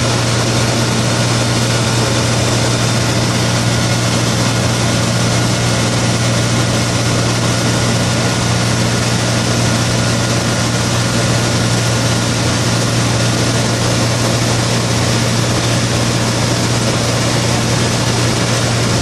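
Single-engine high-wing light aircraft in cruise, its engine and propeller running steadily as heard inside the cabin: a strong low hum over an even rushing noise, with no change in pitch or level.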